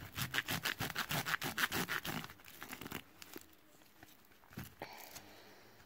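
Paper and card album packaging handled by hand: a quick run of scratchy rustles, several a second, for about three seconds, then a few lighter clicks and rustles.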